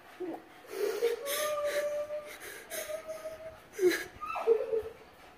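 A dog crying out during a convulsive seizure: breathy, strained cries, two of them held on one steady pitch for about a second each, then shorter cries that fall in pitch near the end.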